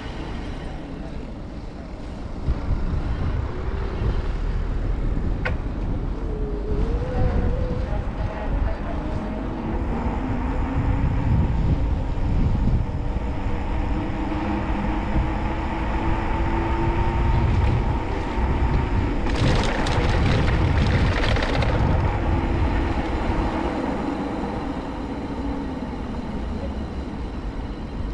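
City street traffic heard from a bicycle: a low, constant rumble, with vehicle engines whose pitch slowly rises and falls as they pass. About two-thirds of the way through there is a brief burst of hiss.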